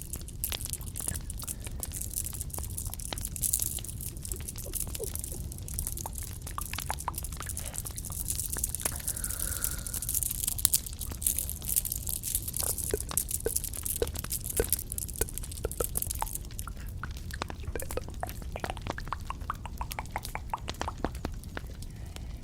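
Close-miked ASMR trigger sounds: a steady stream of small, irregular clicks and crackles over a constant hiss.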